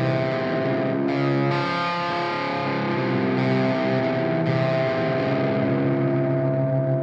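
Music: distorted electric guitar playing slow, long-held chords.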